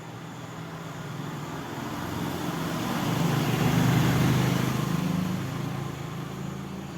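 A motor vehicle passing by, its engine hum and road noise growing louder to a peak about four seconds in, then fading away.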